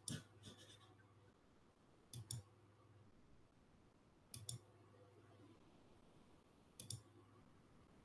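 Near silence broken by four faint double clicks, about two seconds apart.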